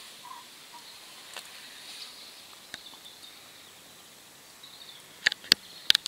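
Quiet outdoor ambience with a faint, steady high hiss, then three or four sharp knocks and slaps about five seconds in as a common carp that is still fighting is handled on an unhooking mat and lifted.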